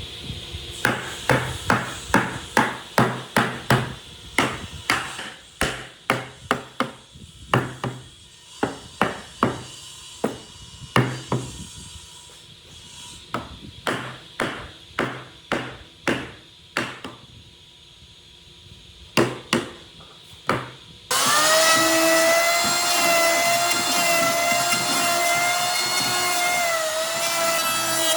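Hammer blows on wood: a long run of sharp strikes, two or three a second, with a few short pauses. After about twenty seconds a power tool starts suddenly and runs with a steady pitched whine.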